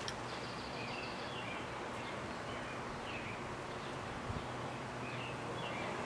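Steady outdoor background noise with faint, short bird chirps scattered throughout.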